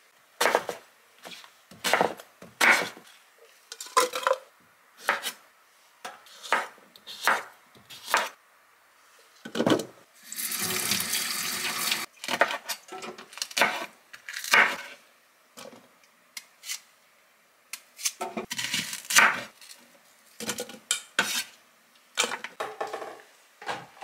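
Irregular clinks and knocks of kitchenware and ingredients being handled on a countertop. A kitchen tap runs for about two seconds a little before the middle.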